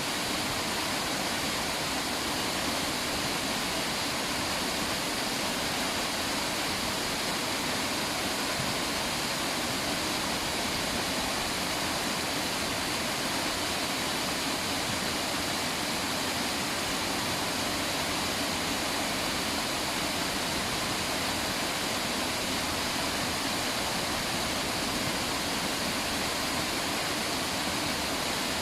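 River water rushing steadily, a constant even rush with no breaks.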